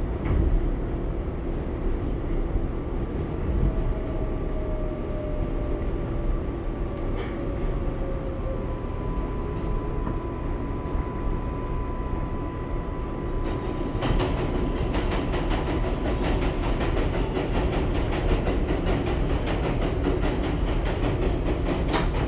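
R188 subway train with Bombardier MITRAC propulsion pulling out of the station: a steady low rumble of wheels and motors, with a faint motor whine that falls slightly in pitch. About two-thirds of the way through, a rapid clicking clatter of wheels on rail begins and runs on.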